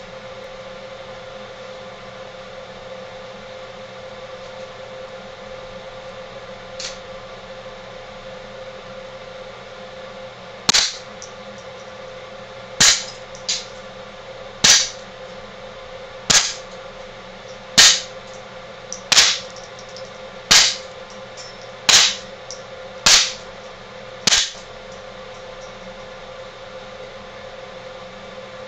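Suppressed Walther P22 .22 LR pistol firing a string of about ten sharp, short shots, roughly one every second and a half, with a fainter click or two between them.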